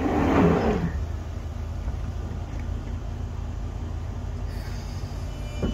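London Underground 1996 Stock Jubilee line train standing at the platform: a brief loud rush of noise in the first second as its doors close, then a steady low hum from the stationary train.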